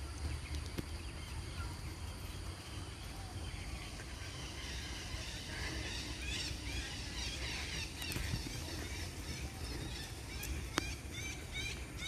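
Several birds chirping and chattering in the trees, starting about four seconds in and thickest in the middle, then one bird repeating a short call about four times a second near the end, over a low steady rumble.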